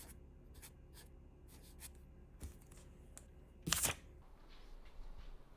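Faint scratchy strokes of a felt-tip permanent marker writing on a small paper card, then one louder, short, sharp sound a little under four seconds in.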